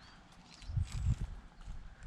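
Dull, low thumps of footsteps, clustered about a second in.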